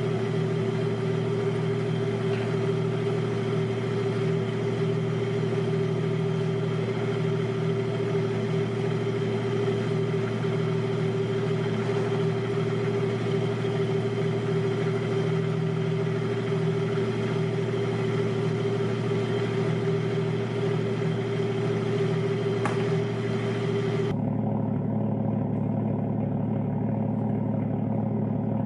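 Toyota 1JZ-GTE turbocharged inline-six, swapped into a Nissan 240SX, idling steadily while it warms up. Near the end the sound turns abruptly duller and lower.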